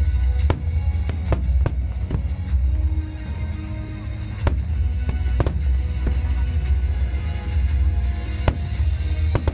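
Aerial fireworks bursting in sharp bangs, a quick run of them in the first two seconds and a few more spread through the rest, over loud music with a deep low rumble.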